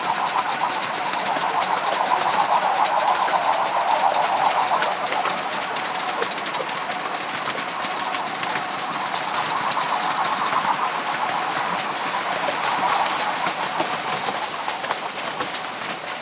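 7¼-inch gauge miniature train running along the track, with a steady running noise and many small clicks from the wheels on the rails.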